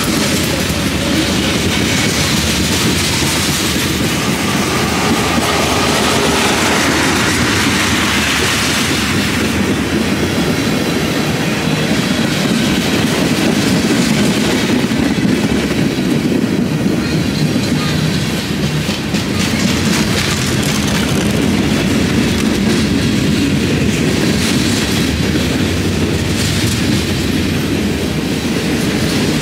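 Freight cars of a passing BNSF freight train rolling by close to the track, a steady loud noise of steel wheels running on the rails.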